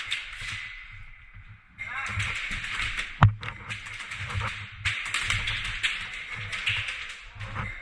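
Airsoft guns firing: rapid clicking shots in quick succession, with one sharp loud crack about three seconds in.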